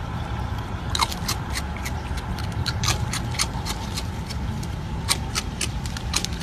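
A raccoon crunching ring-shaped cereal taken from a hand: a run of sharp, irregular crackly clicks, several a second, starting about a second in, over a steady low rumble.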